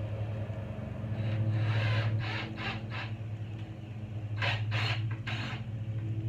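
A steady low mechanical hum, like a running motor, with two groups of three short scraping or rubbing strokes over it, the strokes about a third to half a second apart.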